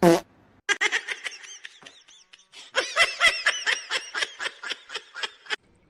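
Laughter in two runs of quick, short, high-pitched bursts, after a brief falling cry at the very start.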